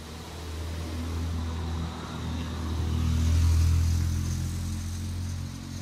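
A motor vehicle's engine running close by: a low hum that swells to its loudest a little past the middle and then fades as the vehicle passes.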